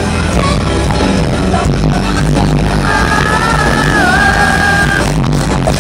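Live metal band playing loudly, recorded from within the concert crowd. Midway a high note is held for about two seconds, wavering and dipping before it stops.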